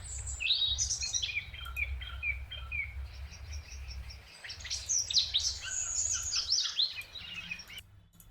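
Birds chirping: a run of short repeated chirps, then a busier flurry of quick twittering calls about five seconds in that stops shortly before the end, over a low steady hum.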